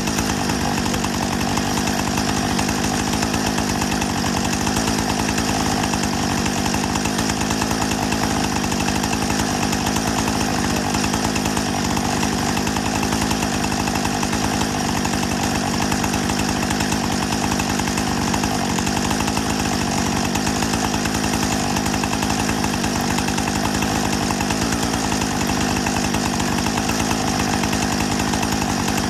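Husqvarna 455 Rancher two-stroke chainsaw running at a steady, even speed.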